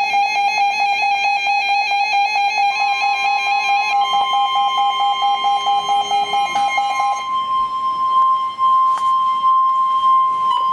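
Emergency alert tones: a fast electronic beeping alarm, joined about three seconds in by a steady single tone, the NOAA Weather Radio warning alarm tone. The beeping stops about seven seconds in, and the steady tone carries on alone.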